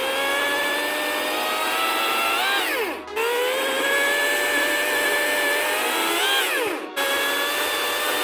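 Ego Power+ 56-volt electric chainsaw's motor whining steadily at speed, then its pitch sweeps down as it winds down. This happens twice, in short segments separated by abrupt cuts.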